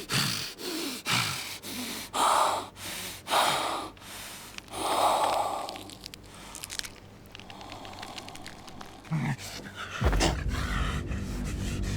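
Heavy ragged panting with snarl-like, rasping breaths, in a quick run of bursts at first, then louder drawn-out gasps. Music comes in near the end.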